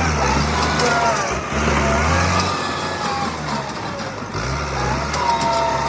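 Bulldozer's diesel engine working and revving in uneven surges, with high squealing tones over it that bend up and down, the loudest near the end.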